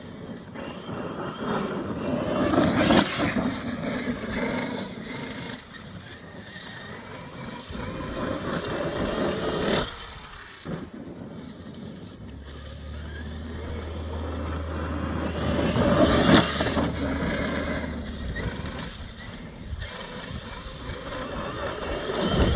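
Traxxas X-Maxx electric RC monster truck driving around a track, its sound swelling and fading about four times as it comes close and runs off again.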